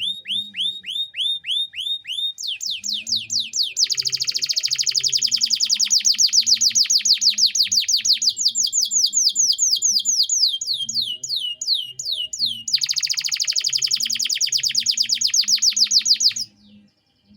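Domestic canary singing a long song of repeated whistled phrases. It opens with falling notes about five a second, shifts to a very fast trill, then to slower down-slurred notes, then to another fast trill, and breaks off suddenly near the end.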